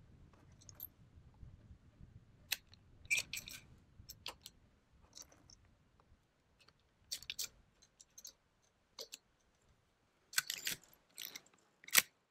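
Quiet metallic clicks and clinks of .30-30 cartridges being pressed one by one through the spring-loaded loading gate into the tube magazine of a Marlin 336 lever-action rifle, with a sharper, louder click just before the end.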